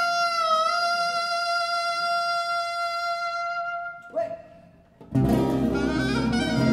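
A long held saxophone note, steady in pitch after a small scoop up at its start, dies away about four seconds in. After a brief near-silent gap, the full band, with acoustic guitar strumming, comes back in loudly about five seconds in.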